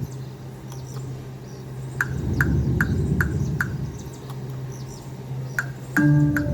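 Casino slot-floor background: a steady low hum and murmur, with a run of five short electronic chirps from slot machines about two seconds in. Steady electronic machine tones start near the end.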